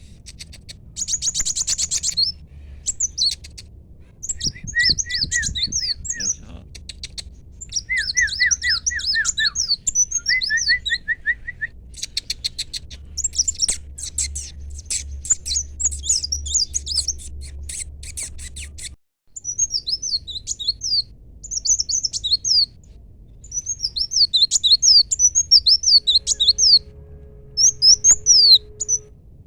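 A kolibri wulung sunbird singing: a fast run of high, thin chirps and trills in bursts with short pauses.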